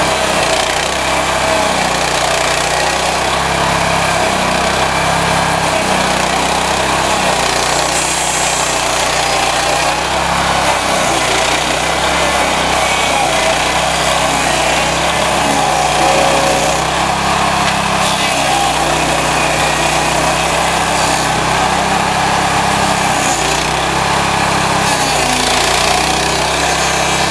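Petrol stump grinder with a 13 hp Honda engine running hard while its cutting wheel grinds into a tree stump, chewing wood into chips. The engine note shifts up and down as the cutter works.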